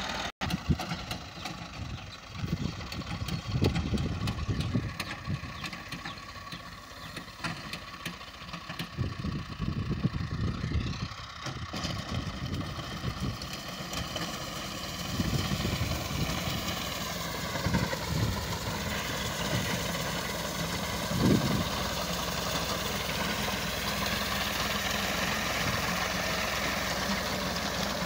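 Farm tractor's diesel engine running steadily under load as it drives a front-mounted wheat reaper through standing wheat. Its pitch dips and recovers a few times.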